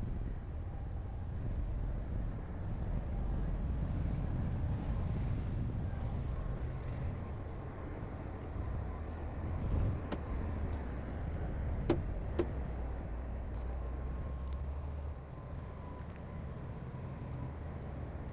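Heavy diesel construction machinery running steadily with a low rumble, with two sharp knocks about half a second apart midway through.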